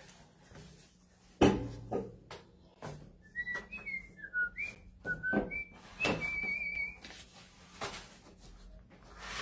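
A few short whistled notes gliding up and down, ending in one held note, over knocks and clatter of things being set down and moved on a table; the sharpest knock comes about a second and a half in.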